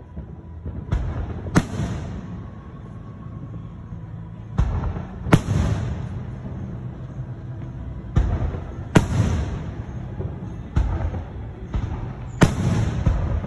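Aerial fireworks shells bursting overhead: four loud bangs about three and a half seconds apart, each coming just after a duller boom, with low rumbling between.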